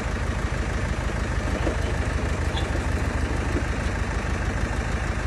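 An engine running steadily at a constant speed, a low even throb with no change in pace.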